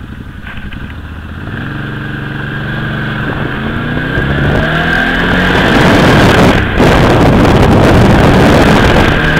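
Arctic Cat Wildcat side-by-side's engine accelerating hard, its note climbing and growing louder over the first several seconds. There is a brief let-off about two-thirds of the way in, then it runs loud and steady at speed.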